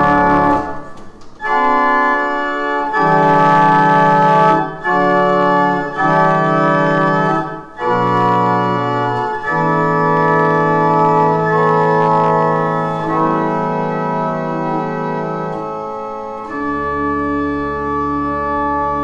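Pipe organ playing the closing voluntary in full sustained chords. The phrases break briefly about a second in and again around eight seconds, a long chord is held in the middle, and deep pedal bass notes come in near the end.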